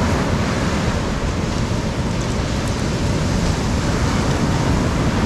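Ocean surf washing onto a sandy beach, a steady rush of noise, with wind on the microphone.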